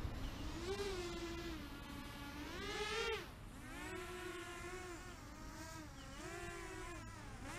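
SWAGDRONE F-210 racing quadcopter in flight: the buzzing whine of its motors and propellers, the pitch rising and falling as the throttle changes. It swells loudest about three seconds in, then drops away.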